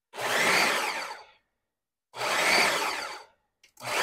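Ninja food processor motor pulsed twice, each burst about a second long, then switched to a continuous run near the end, its beater blade mixing and pulling a meat filling.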